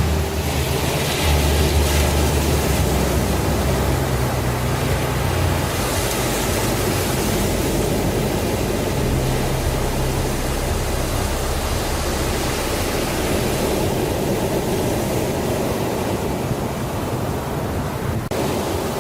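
Ambient background music: a steady rushing wash like surf over low held notes that change pitch every few seconds.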